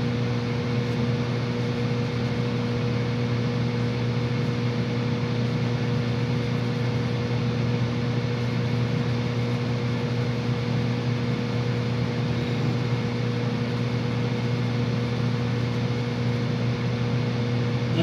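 Furnace fan motor running steadily, a continuous electrical hum under a rush of moving air.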